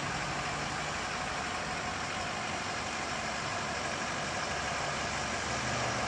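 Steady road-traffic noise with the low hum of an idling vehicle engine; the hum is faint in the middle and grows stronger near the end.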